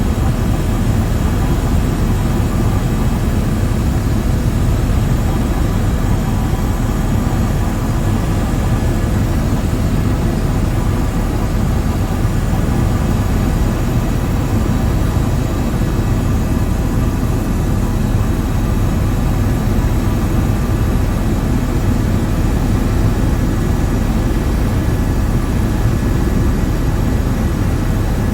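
Loud, steady drone of a light aircraft's engine in flight, heard from inside the cabin.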